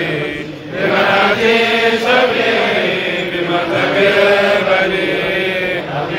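A group of men chanting together in long held notes, a devotional chant, with a brief lull about half a second in.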